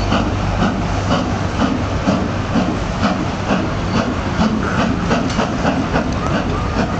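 LMS Princess Royal class four-cylinder steam locomotive 6201 Princess Elizabeth working a passenger train away from a standstill, its exhaust beating in a quick rhythm over the rumble of the train.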